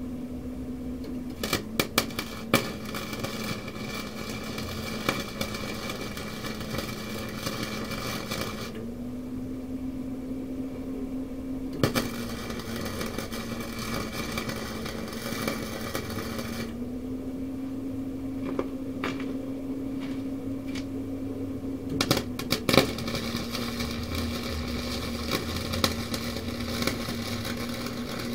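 Electric arc welder welding steel tubing in three runs of crackling, sizzling arc noise, each several seconds long, with short pauses and a few sharp clicks between them. Under them the welding machine gives a steady hum that drops in pitch while the arc is lit.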